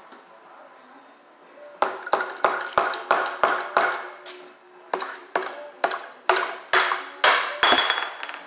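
A hammer or mallet striking metal parts of a Harley-Davidson Twin Cam engine during teardown, about three blows a second in two runs of roughly eight with a short pause between, each ringing briefly with a metallic ping.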